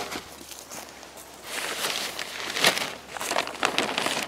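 Crinkling and rustling of a white frost cover being pulled back off a garden bed, with footsteps on dry grass. A single sharp click at the very start.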